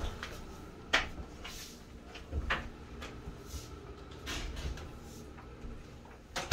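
Wooden kitchen cabinet doors being handled: a sharp click about a second in, a few faint knocks and shuffles, then a louder click at the very end as a cabinet door is opened.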